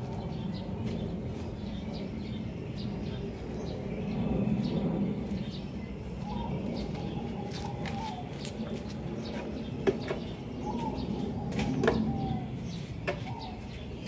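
Scattered sharp clicks and light knocks of plant pots and debris being handled during clearing, the loudest about ten and twelve seconds in, with short bird calls in the background.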